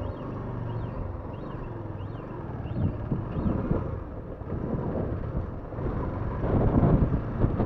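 Motorcycle engine running at low speed, with wind on the microphone growing louder in the second half. A faint high beep repeats about every two-thirds of a second for the first few seconds, then stops.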